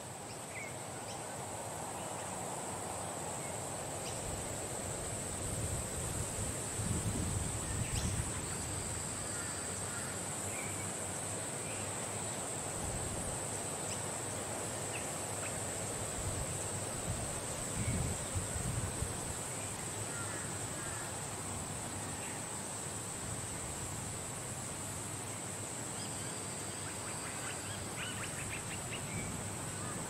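Outdoor ambience in a date palm grove: a steady high-pitched whine under a constant hiss, with short bird chirps now and then. Wind buffets the microphone in low rumbling gusts a few times, most strongly about six to eight seconds in and again near eighteen seconds.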